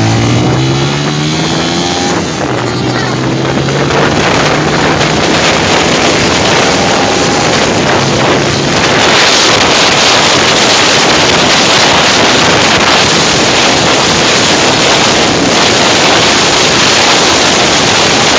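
Honda CG 125 single-cylinder four-stroke engine, fitted with an older-pattern silencer modified for sound, accelerating on the move. Its pitch rises over the first couple of seconds, then holds steadier. From about nine seconds in, loud wind rush on the microphone mostly covers the engine.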